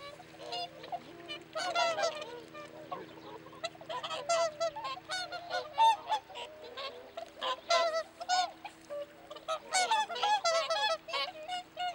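A flock of whooper swans calling, many short calls overlapping one another, coming in busy clusters about four to six seconds in and again near ten seconds.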